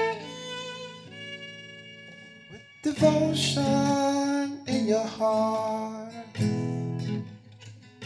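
Background music led by plucked guitar: one phrase fades out, and a new, louder phrase starts with a sharp attack about three seconds in.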